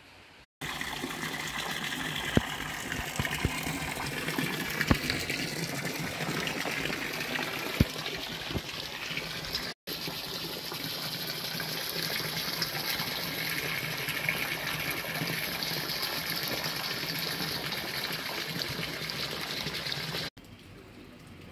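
A steady rush of running water, with a few sharp clicks in the first eight seconds. It cuts off abruptly about ten seconds in and resumes at once, then drops away sharply near the end.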